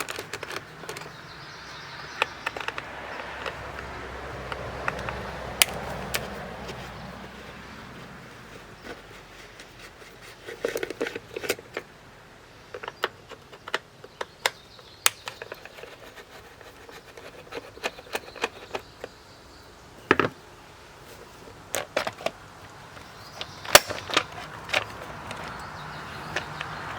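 Scattered sharp clicks and metal clinks of hand tools being handled and used on a chainsaw, with soft handling noise between them.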